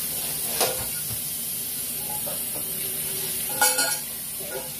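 Kitchen tap running into a stainless steel sink, a steady rush of water, with a sharp knock about half a second in and a short clatter of knocks just before four seconds.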